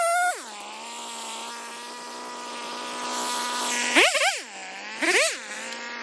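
Stihl MS 250 chainsaw's two-stroke engine dropping from high revs to a steady idle at the start, then blipped twice near the end, each rev rising and falling quickly before it settles back to idle.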